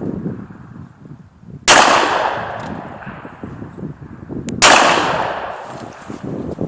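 Two shots from a 1937 Smith & Wesson .45 revolver, about three seconds apart. Each is followed by a long echo that dies away over a couple of seconds.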